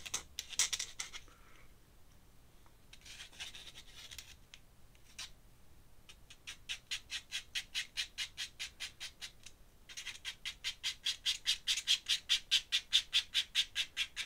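Ink pen scratching on paper in quick, rhythmic hatching strokes, several a second. It comes in short runs at first and longer runs in the second half.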